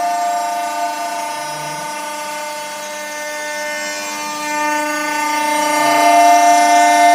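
Minimo 0609TT desktop CNC milling machine running a job, its spindle whining steadily as the bit cuts a shallow groove in plywood, with higher tones that come and go as the machine moves. It grows louder about five seconds in.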